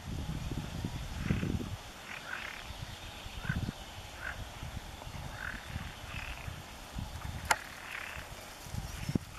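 Short animal calls repeating about once every half second to a second, over a low rumbling noise that is strongest in the first couple of seconds, with one sharp click about seven and a half seconds in.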